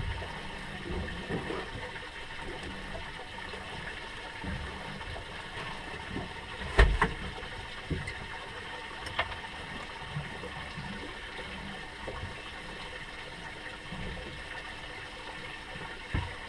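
Steady wash of water around a small fishing boat, with a loud knock about seven seconds in and a few lighter knocks later.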